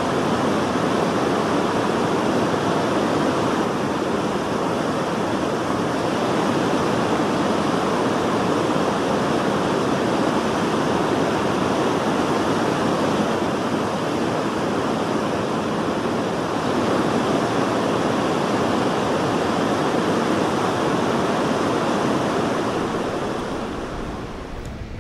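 Steady rush of river water pouring through a river intake weir (headworks), an even roar with no breaks, easing off a little near the end.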